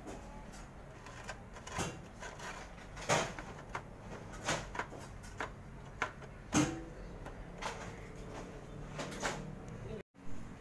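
Irregular hard plastic clicks and knocks as a plastic cover is handled and fitted into a slot in a Canon iR copier's housing, with the sharpest snaps about three and six and a half seconds in.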